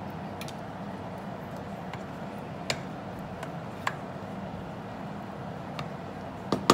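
Wooden spoon stirring a thick stew in a stainless-steel pot, with a few light clicks of the spoon against the pot, over a steady background noise. A louder clatter comes near the end.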